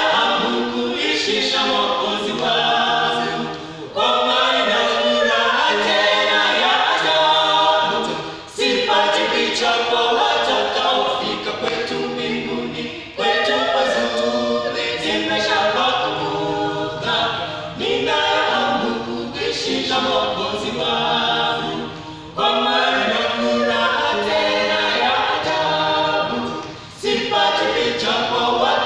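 A small mixed group of men's and women's voices singing unaccompanied in harmony, in phrases of four to nine seconds with short breaks for breath between them.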